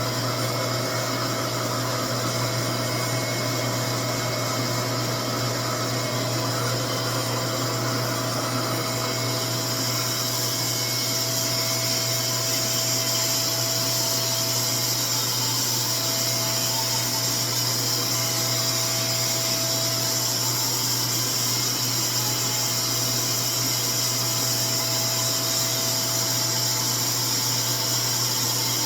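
RevAir reverse-air hair dryer running steadily, its suction motor drawing hair into the wand, with a steady hum and airy hiss.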